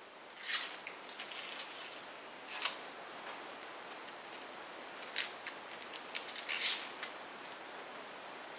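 Dry papery onion skin being peeled off by hand, crackling and rustling in short, irregular bursts.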